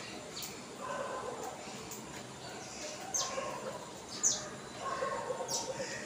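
House sparrows chirping: short, sharp, high chirps that fall in pitch, coming about once a second.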